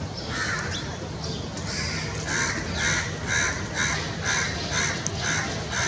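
Indian bullfrogs (Hoplobatrachus tigerinus) calling: a regular run of short croaks, a little over two a second, louder from about two seconds in.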